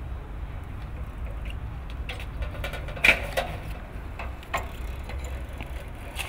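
A small child's bicycle being ridden, giving off scattered clicks and knocks, the loudest about three seconds in, over a steady low rumble of wind on the microphone.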